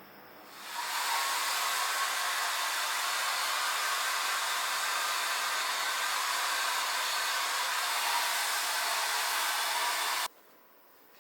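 Hair dryer switched on, blowing at a steady level for about nine seconds, then switched off abruptly.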